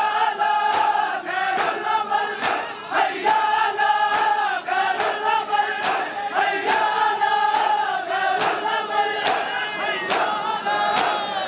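A large group of men chanting a Punjabi noha together, with unison hand-on-chest matam strikes keeping time at a little faster than one a second.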